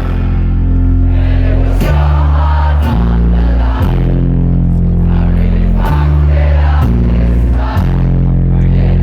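Loud electronic dance music with a deep bass line holding long notes that shift pitch every second or so, over a sparse beat.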